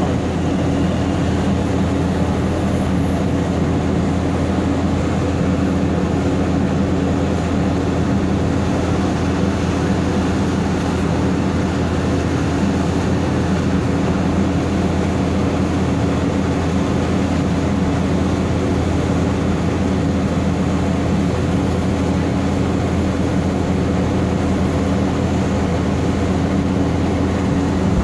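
Diesel engine of a Vögele tracked asphalt paver running steadily at work, a constant low, heavy drone that does not change.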